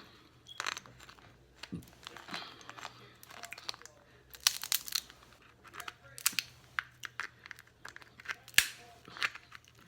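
Crab claw shell being pulled apart and cracked by hand: scattered sharp cracks and short crinkly crunches of shell.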